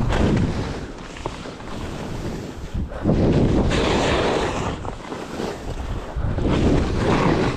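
Skis scraping and carving through chopped-up snow on a downhill run, with wind rushing over the camera microphone. The noise swells loudly with each turn, three times.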